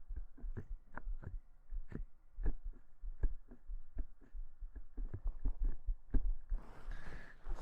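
Human heartbeat picked up through a microphone held against the chest: a steady, even run of soft low thumps. Near the end, a rustle of movement against the microphone joins in.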